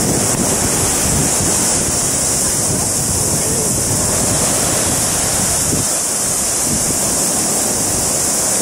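Steady wash of surf on a sandy beach, with wind buffeting the microphone.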